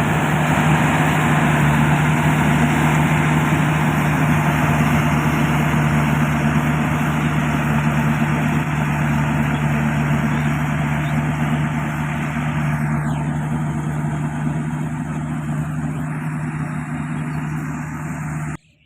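Yanmar combine harvester running steadily, its engine hum under a dense mechanical clatter of machinery; a faint falling whine passes about two-thirds of the way through. The sound cuts off abruptly just before the end.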